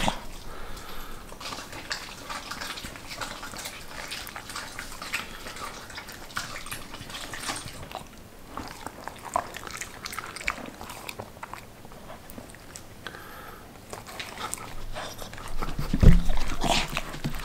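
Border collies eating: wet chewing, smacking and licking at plates of kimchi and pork, with many small clicks of teeth and tongue. There is a louder thump near the end.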